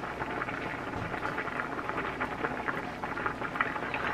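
A pot boiling on the stove: a steady bubbling with many small pops and crackles.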